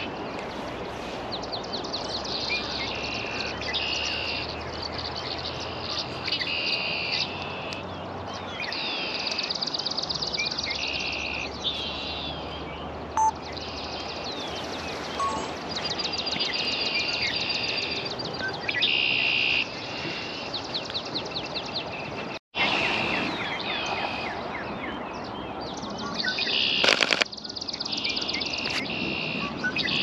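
A chorus of songbirds singing, many repeated trilled phrases overlapping one another. The sound cuts out for a moment about three-quarters of the way through, and a few sharp clicks come near the end.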